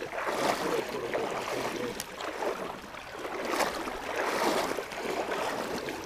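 Legs wading through knee-deep creek water: sloshing and swishing that swells and eases with each stride.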